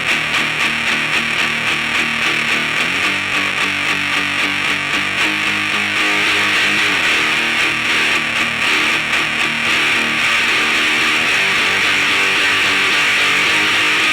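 Electric guitar strummed through a fuzz pedal, heavily distorted chords with a thick, hissy top end.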